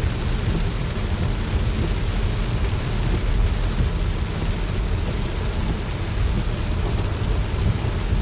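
A car driving in heavy rain: steady, deep road and engine rumble with the hiss of rain over it.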